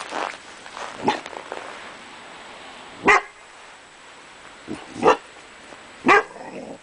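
Curly Coated Retriever puppy giving several short, sharp barks a second or two apart, the loudest three in the second half, barking at his own reflection in a mirror.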